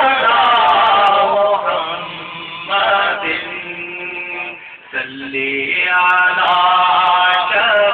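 A man singing Urdu devotional verse into a microphone, drawing out long wavering notes, with a short break about four and a half seconds in before the next phrase.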